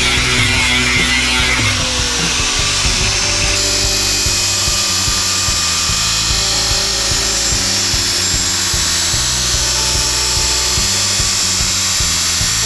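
Background music with a low beat, mixed over the steady high noise of a power tool working on steel.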